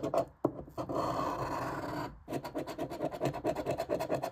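A large coin scraping the scratch-off coating from a lottery ticket: one continuous scrape, a brief stop just after two seconds in, then quick back-and-forth strokes.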